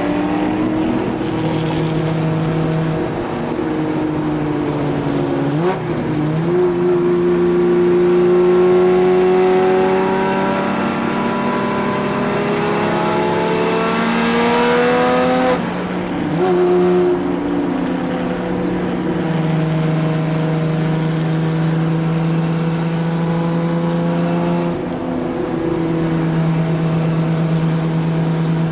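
Cockpit sound of a 1963 Jaguar E-type's straight-six racing engine under hard throttle. Its note climbs steadily for about ten seconds, drops sharply about halfway through with a short blip of revs just after, then pulls steadily again.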